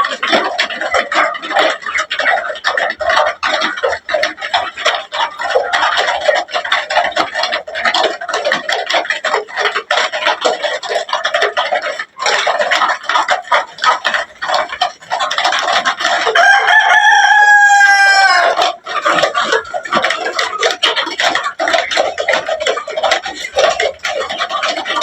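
Flock of desi chickens clucking and calling, with a rooster crowing once about two-thirds of the way through: one long call that falls slightly in pitch.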